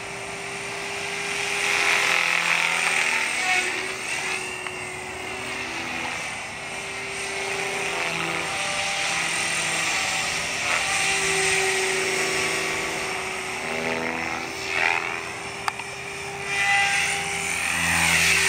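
Mikado Logo 480 electric RC helicopter flying 3D aerobatics: a steady motor whine and rotor buzz that swells and fades, with a few sweeps in pitch as it turns and passes.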